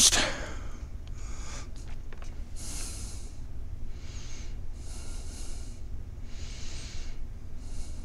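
A person breathing close to the microphone: three soft breaths about a second and a half apart, over a steady low hum.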